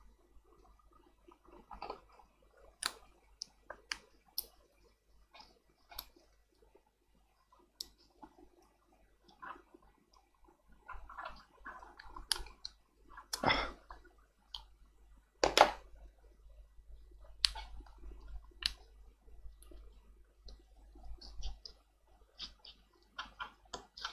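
Irregular small clicks, taps and short scrapes of a tool working at a glued-in lithium battery inside a tablet to pry it loose, with two louder scraping knocks a little past the middle.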